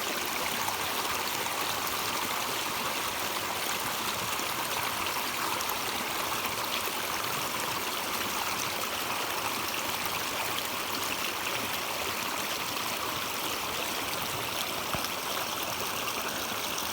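Stream water flowing and trickling over rocks in a steady, even rush.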